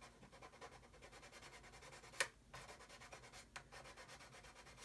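Faint scratching of a small sanding stick rubbed over the plastic bow of a scale model hull, with one sharp click about two seconds in.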